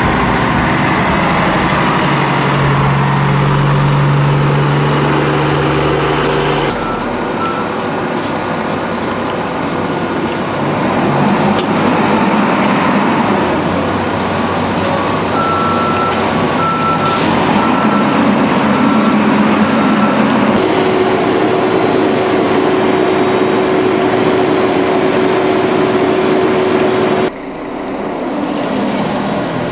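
Truck engine running steadily across several cut-together shots, with a row of short reversing beeps about halfway through.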